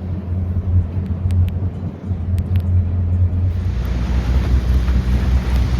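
Boat motor running steadily underway, a low hum and rumble; about three and a half seconds in, a rushing noise grows louder over it.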